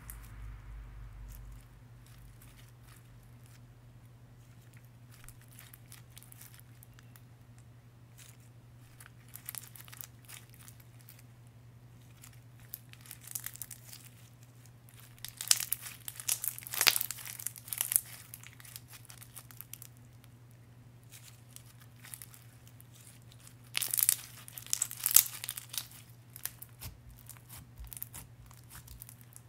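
Clear slime full of glitter and sequins being squeezed, stretched and pressed by hand, crackling and crinkling with many small clicks. The crackling is loudest in two spells, about halfway through and again a few seconds before the end, over a low steady hum.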